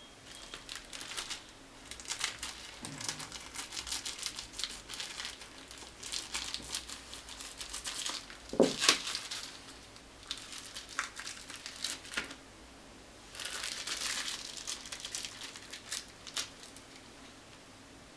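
Thin plastic packaging or film being handled, crinkling in irregular bursts, with the loudest crackles about halfway through.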